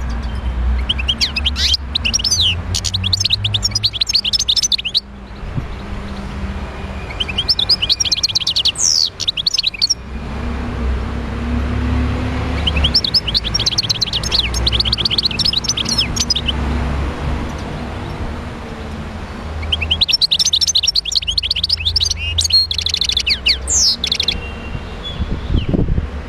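Wild-caught European goldfinch singing in four bouts of rapid, twittering trills, each a few seconds long with short pauses between, over a steady low background rumble.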